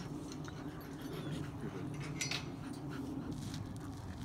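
Faint dog sounds from several dogs moving about, over a steady low background noise, with a couple of brief faint clicks or yips.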